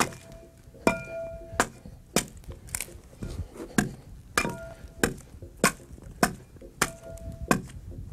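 Broad axe hewing the side of a green log, taking off thin shavings: a steady series of sharp chops, about three strikes every two seconds, some followed by a brief ringing tone.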